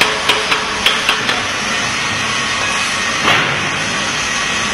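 Rapid hammer blows, about three to four a second, that stop about a second and a half in, over a steady hiss of workshop noise. A brief louder rush of noise comes a little past three seconds in.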